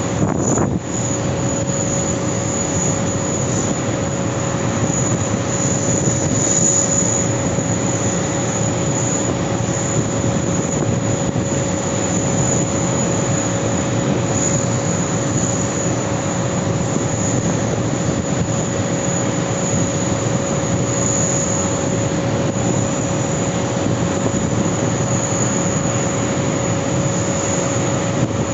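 Steady jet engine noise with a constant whine, neither rising nor fading.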